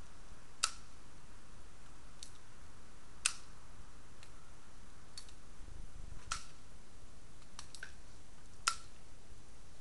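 Small, sharp clicks from a 4.5 mm pellet pistol being handled: four louder clicks a few seconds apart, with fainter ticks between.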